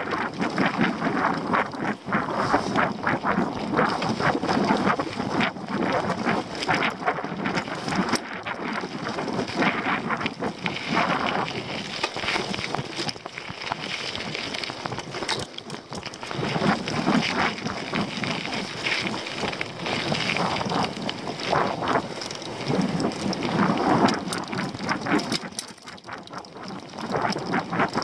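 Mountain bike descending a dirt trail at speed: wind buffeting the microphone over tyre noise on the dirt, with frequent sharp clatters and rattles from the bike over bumps.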